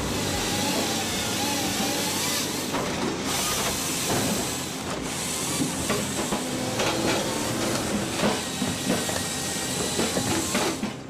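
Firewood processing machinery running: a steady loud hiss with scattered knocks and clatter.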